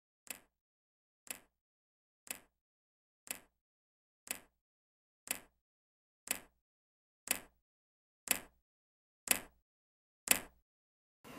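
Eleven sharp ticks, one each second, each louder than the last, over dead silence: a ticking clock-style sound effect laid in place of the natural sound.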